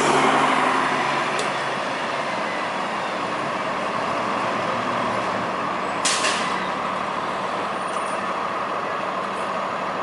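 New Flyer D40LFR diesel transit bus pulling past and away, its engine sound fading over the first second or two into a steady hum. About six seconds in comes a short, sharp hiss of air brakes.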